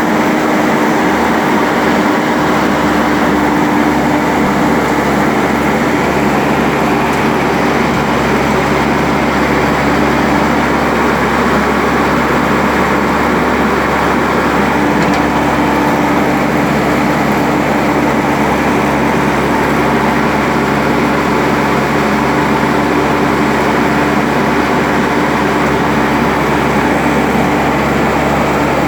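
Engine of an Ajax Fiori Agro 4000 self-loading concrete mixer running steadily at a constant speed, with a steady hum under a dense mechanical rumble.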